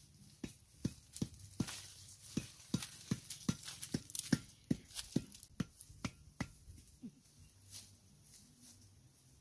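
Footsteps crunching on dry leaf litter and twigs, an even run of about three sharp steps a second that stops about six and a half seconds in, followed by a few fainter rustles.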